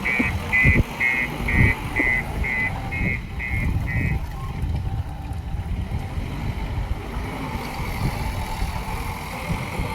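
JCB 3DX backhoe loader running under work, with irregular low knocks. Its reversing alarm beeps about twice a second and stops about four seconds in.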